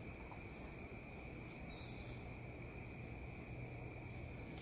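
Steady outdoor night chorus of crickets: several continuous high trills at different pitches, unbroken, over a faint low hum.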